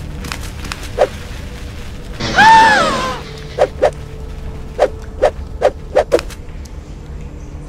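Cartoon footstep sound effects, a scatter of single sharp steps, over a low steady hum. About two seconds in, the loudest sound is a short high cry lasting about a second that rises and then falls in pitch.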